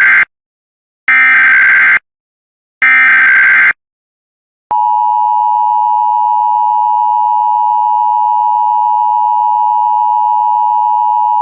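Emergency Alert System SAME header data bursts: the tail of one, then two more harsh buzzy digital screeches about a second long each, separated by short gaps. About five seconds in, the steady two-tone EAS attention signal starts and holds.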